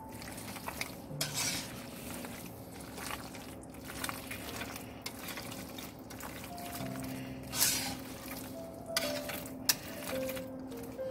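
Penne macaroni in a thick creamy cheese sauce being stirred in a pan with a spoon: a steady wet mixing sound, with the spoon knocking and scraping against the pan now and then.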